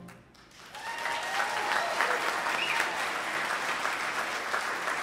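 Audience applauding, starting about half a second in after the band's final chord is cut off, with a few cheers.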